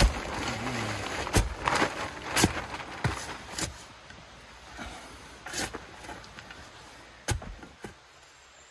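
Steel shovel digging into loose soil and compost: a series of sharp scrapes and knocks from the blade, several in the first few seconds, then sparser and quieter.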